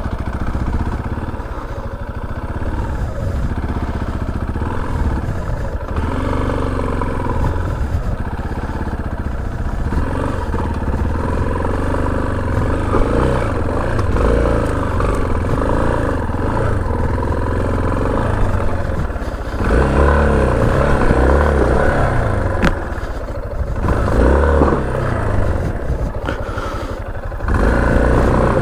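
Motorcycle engine running as the bike is ridden along a rough forest road, the revs rising and falling with several louder throttle surges in the second half, along with some clatter from the rough surface.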